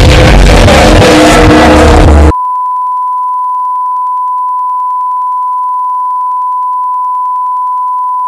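Loud, dense, distorted music cuts off abruptly about two seconds in. It gives way to a steady, unbroken single-pitch beep, the line-up test tone that accompanies colour bars when a channel goes off the air.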